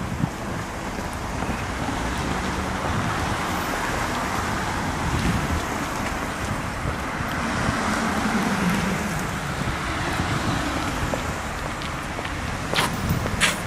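Steady city street traffic noise, swelling as a vehicle passes about eight seconds in, with a few sharp clicks near the end.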